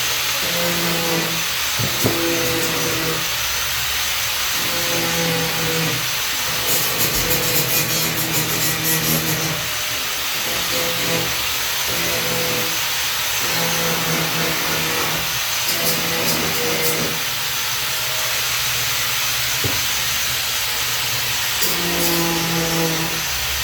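Electric power tool running on wood, a loud steady hiss with a lower hum that comes and goes every second or two.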